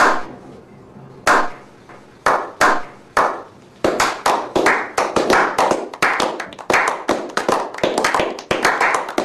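A slow clap from a small group of people: single claps spaced about a second apart at first, then from about four seconds in quickening into faster, overlapping applause.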